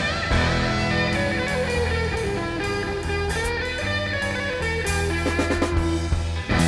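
Rock band playing an instrumental break with no singing: a lead electric guitar line with bending notes over bass guitar and a drum kit.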